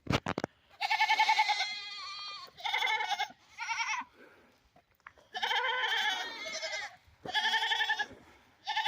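Goats bleating over and over: about six wavering bleats, the longest drawn out for over a second in the middle. A few sharp clicks come at the very start.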